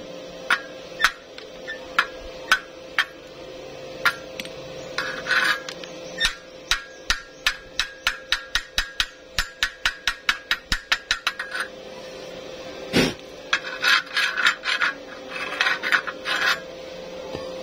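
Chipping hammer tapping slag off a fresh weld on thin steel square tube, the taps speeding up to about four a second, then one heavier knock and several rasping strokes of a wire brush scrubbing the weld.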